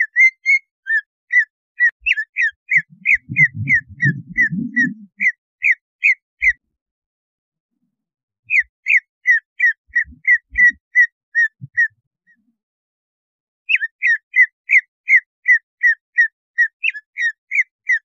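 Cucak ijo (green leafbird) calling in a lure recording used to rouse captive cucak ijo: runs of short, sharp, falling chirps, about three a second. There are three runs, with pauses of about two seconds between them.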